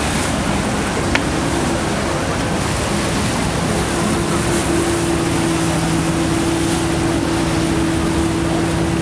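Boat engines droning over a steady rush of wind and choppy river water, with the engine hum settling into a steady tone from about four seconds in. A single short click about a second in.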